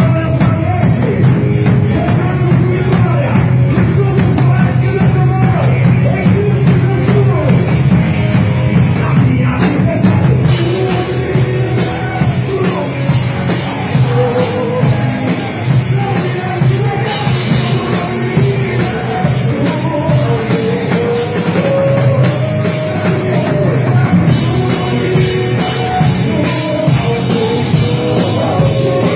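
Worship band playing a loud rock-style praise song with a drum kit, a melodic line wavering over a steady bass.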